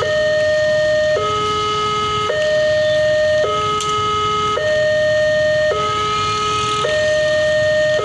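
Railway level crossing's new electronic warning siren sounding a two-tone hi-lo alarm, switching between a higher and a lower tone about every second. It is the crossing's warning that the barriers are down for an approaching train.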